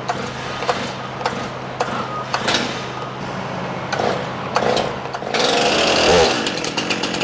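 Stihl MS 391 two-stroke chainsaw being pull-started cold on choke: short rattles of the starter cord, then the engine catches about five seconds in and keeps running.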